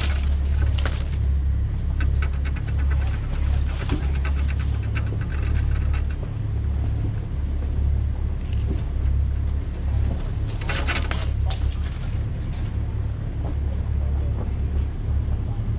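Off-road SUV crawling along a dirt forest trail, its engine and drivetrain a steady low rumble. Bursts of scraping and rattling come near the start, again a couple of seconds in, and once more about ten seconds in, as the body is jolted and brushed by the trail.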